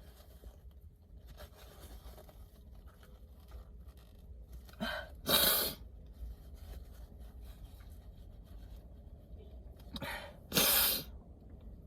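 A woman with a head cold sneezing hard and uncovered, twice, about five seconds apart. Each sneeze is led by a short catch of breath.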